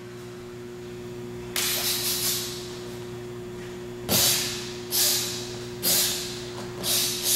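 Sharp hissing bursts of forced breath and gi swish from a karateka performing a Shotokan kata, one with each technique. A quick run of three comes about a second and a half in, then five more follow, roughly one a second, each starting sharply and fading within half a second.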